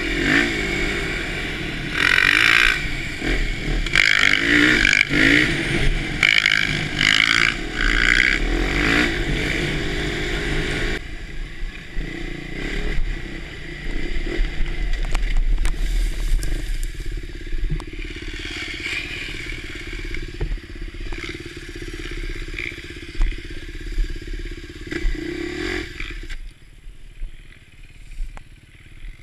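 Husqvarna TE511 enduro bike's single-cylinder engine revving hard and falling back repeatedly while riding for about the first ten seconds. It then eases to a quieter, steadier run close to idle, and drops away near the end.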